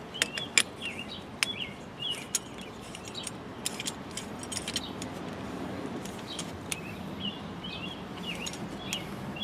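A small bird chirping in short repeated phrases, with scattered light clicks and taps from hands working hose fittings.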